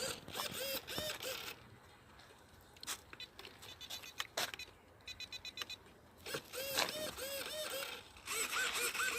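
Runs of short pitched calls from a bird, each call rising and falling, about four a second, in three bursts: at the start, in the middle and near the end. A few sharp clicks fall in between.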